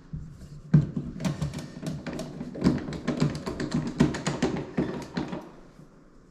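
Screwdriver driving the screws of a plastic GFCI outlet cover plate, making a quick run of small clicks and taps that stops about five seconds in.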